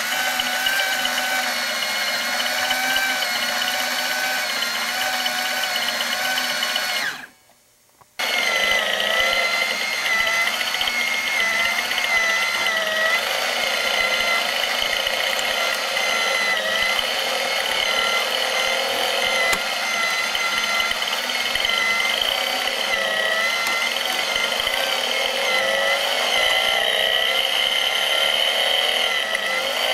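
Small electric motor driving the plastic gear train of a BMW R90S engine model kit: a steady whine of several wavering tones as the painted gears turn somewhat unevenly, which the builder blames on the paint. It cuts out for about a second some seven seconds in, then runs on.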